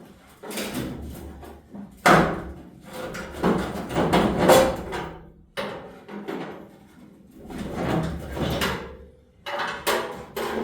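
Steel front fender of a 1952 Ford F3 scraping and clunking against the truck body in several rough, uneven bouts as it is worked loose and lifted off.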